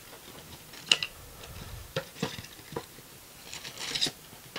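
A cardboard trading-card box being opened by hand: scattered clicks and scrapes as the flaps are pulled open, then a short rustle as the card packs inside are handled near the end.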